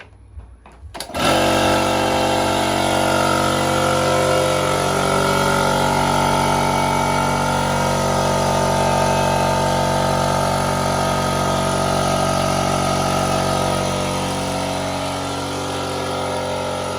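A 30-litre single-motor air compressor, not the silent-motor type, switches on about a second in and runs loudly and steadily with a constant pitched hum.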